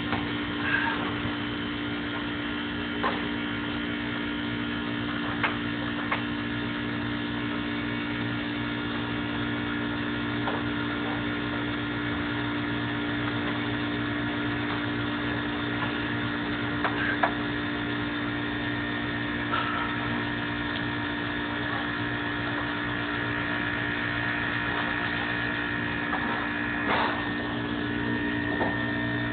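A steady machine hum made of several constant tones, with a faint high whine over it. A few short, light knocks break through now and then.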